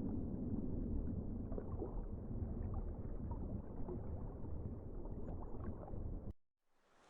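Low, muffled water rumble with scattered faint bubbling ticks, cutting off abruptly about six seconds in.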